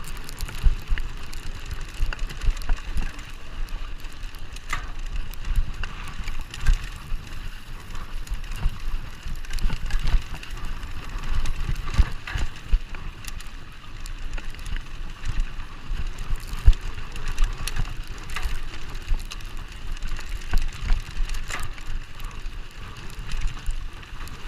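Mountain bike ridden fast over a dirt track: steady tyre noise on the loose surface, with many irregular knocks and rattles from the bike as it hits bumps.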